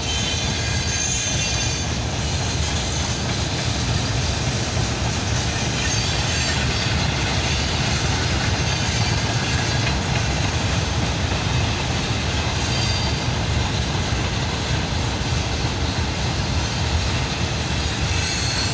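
Freight train behind a VL11 electric locomotive rolling steadily past: a continuous rumble of wagon wheels on the rails, with faint high wheel squeals at times.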